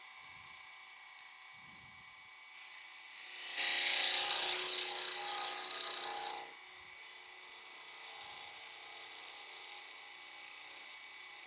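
A small power tool runs for about three seconds, starting abruptly about three and a half seconds in and stopping near six and a half seconds, over a faint steady workshop hum.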